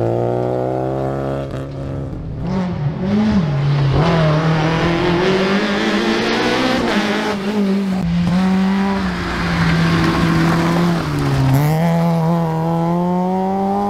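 Small rally cars (Renault Clios and a Peugeot 106) driven hard past one after another on a tarmac stage, engines revving high. The engine note climbs under acceleration and drops back at each gear change or as one car gives way to the next.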